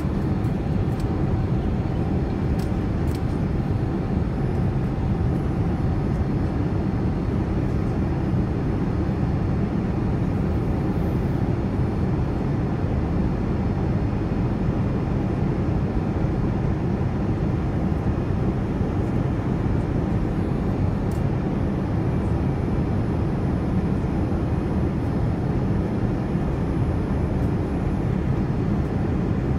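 Steady cabin noise inside a Boeing 787-9 Dreamliner during its climb-out after takeoff: the jet engines and rushing air, heard by a window seat as an even, deep rumble.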